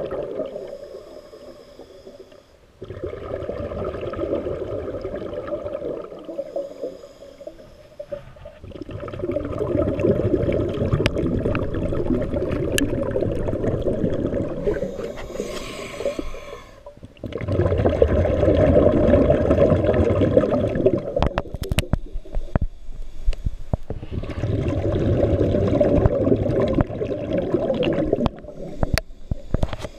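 Scuba diver breathing through a regulator underwater: long bubbling exhalations in loud spells of several seconds, with short quieter gaps for the inhalations, sound muffled above the low range. A few sharp clicks come near the end.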